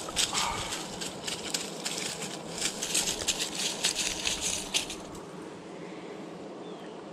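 Dry pine needles and leaves crackling and rustling as a freshly caught striped bass is handled and picked up off the ground; the crackling stops about five seconds in.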